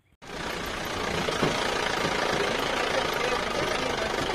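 Jeep engine running steadily as the jeep drives along a dirt track, cutting in just after a moment of silence.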